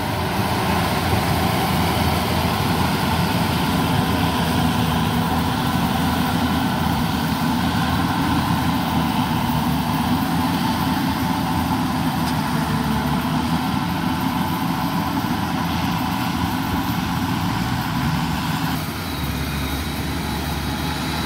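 Yanmar 850 rice combine harvester running steadily while it cuts and threshes rice, a dense mechanical drone that keeps going even though the machine is sinking into soft, boggy ground. About nineteen seconds in the sound drops a little and changes as the harvester is heard from farther off.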